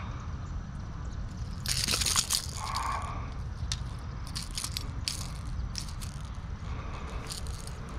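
Grass rustling and crunching as a landed bass is grabbed and handled, with a burst of crackling about two seconds in and scattered crackles after, over a steady low rumble.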